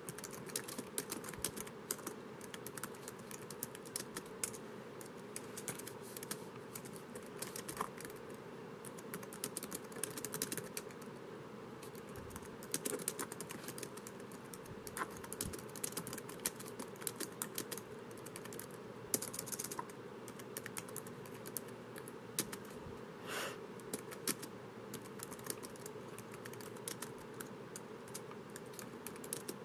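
Fingers typing on a laptop keyboard: an irregular, continuous stream of key clicks with occasional louder taps, over a constant low background hum.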